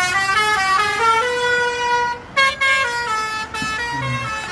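Lorry's musical 'telolet' (basuri) air horn playing a quick tune of stepped notes, one note held for about a second, a short break around two seconds in, then more notes.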